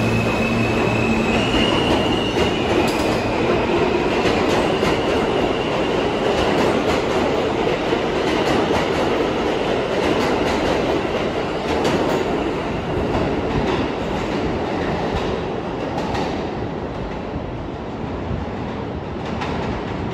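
New York City subway train running through the station with steady wheel and track noise and a faint high wheel squeal in the first few seconds, the sound easing off slowly toward the end as it moves away.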